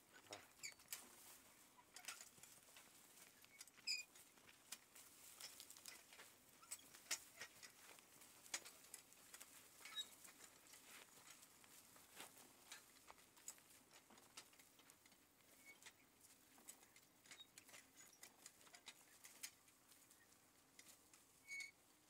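Faint, irregular crackling and scratching of dry soil and potato stubble as a horse-drawn plow is worked through the field, with a few brief high chirps.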